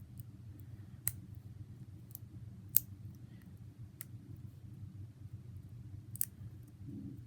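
Four sharp plastic clicks, a second or two apart, as a clear plastic putty container's lid is pried and twisted at, over a low steady hum.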